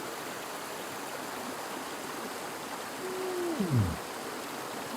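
Creek water running steadily. About three seconds in, a short held tone slides steeply down in pitch and is the loudest sound.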